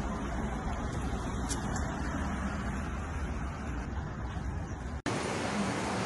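Street traffic noise: a steady, low rumble of passing cars. About five seconds in it breaks off abruptly into a brighter, hissier street ambience.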